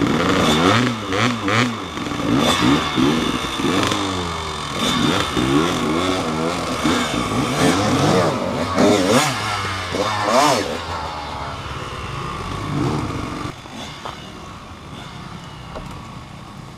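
Dirt bike engine revved up and down over and over, its pitch rising and falling every second or so, with some clatter. About two-thirds of the way through it eases off and gets quieter.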